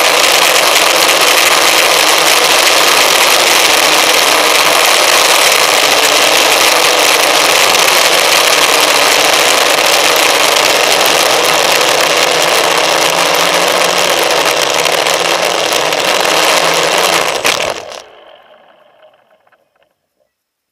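FPV model aircraft's motor and propeller running steadily, heard from the onboard camera. It cuts off suddenly about 18 seconds in as the craft comes down on the ground, leaving a short fading tail.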